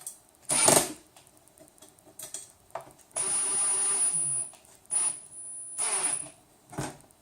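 Small power screwdriver running in short bursts, one about a second and a half long and two briefer ones, with a high whine, as it drives a machine screw into a nut. A sharp knock of a part or tool comes about half a second in.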